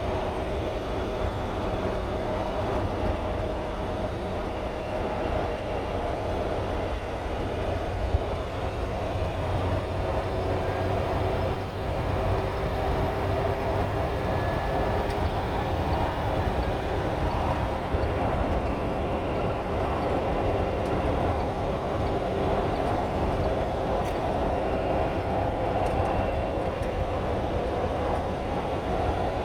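Tow truck on the move: a steady engine drone over a continuous low road rumble, with no breaks.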